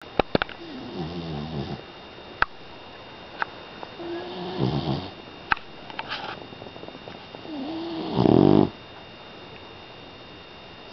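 Five-month-old pit bull puppy snoring: three snoring breaths a few seconds apart, the last and loudest near the end, with a few short sharp clicks in between.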